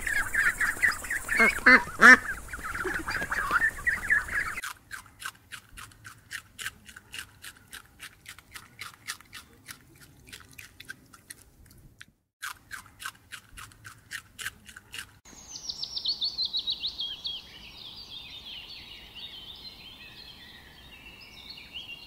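Ducks calling in a dense chatter for the first few seconds. Then rabbits crunching on greens: an even run of about three or four crunches a second, with a short break near the middle. Last come high, quick bird chirps that step down in pitch.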